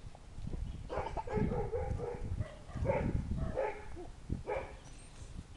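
Doberman puppy barking: a run of short barks, several a second, over about four seconds.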